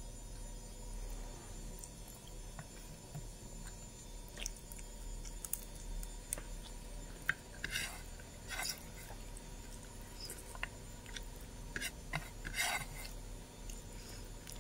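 Eating sounds over a plate of rice and pork curry: scattered soft chewing and mouth clicks, with a few brief plate noises, the loudest about eight and twelve and a half seconds in, over a faint steady hum.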